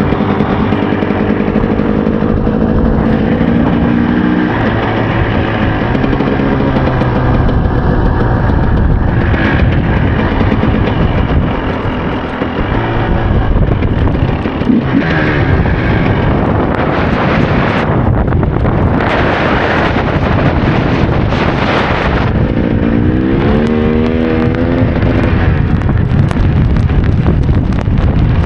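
KTM EXC 300's single-cylinder two-stroke engine running under a riding motorcycle, its pitch rising and falling with the throttle. There are stretches of rushing noise in the middle.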